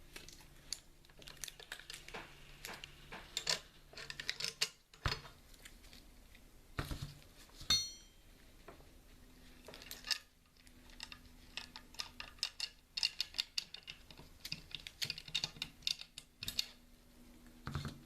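Irregular run of small sharp clicks and taps, as of hard objects being handled, with a short metallic ring a little before the middle.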